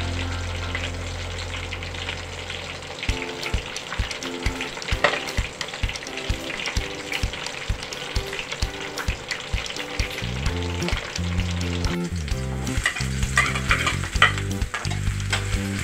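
Fish frying in hot oil in a pan, a steady sizzle with many small crackles. About twelve seconds in it changes to sliced onion and ginger sizzling in oil, with sharper pops. Background music with a beat and bass line plays underneath.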